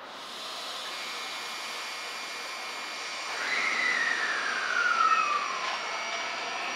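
JR West 521 series electric train's IGBT-VVVF inverter and traction motors whining as it moves slowly past the platform. About halfway through, a clear tone comes in and falls steadily in pitch for a couple of seconds, and the sound is loudest near its end.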